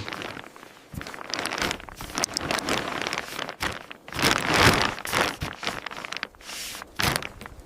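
Irregular bursts of rustling and crinkling, coming and going every second or so, with no steady tone.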